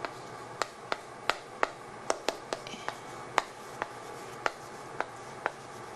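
Chalk clicking and tapping on a chalkboard as words are written, a string of sharp irregular ticks about two a second.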